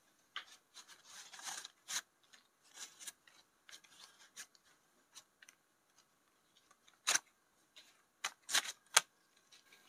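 Rupiah banknotes being handled and straightened by hand: faint paper rustling broken by a few sharp clicks and snaps, the loudest about seven seconds in and twice more near the end.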